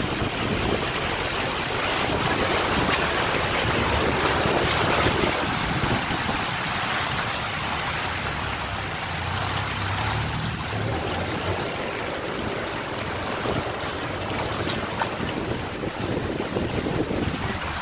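Floodwater running across a road: a steady, wide rushing hiss of water. A low hum swells briefly around the middle.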